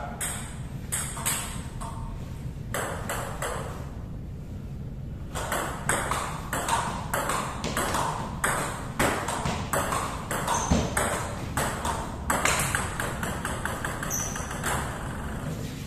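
Table tennis ball ticking off the paddles and bouncing on the table in fast rallies, several sharp clicks a second. The clicks thin out for a couple of seconds a few seconds in, then pick up again.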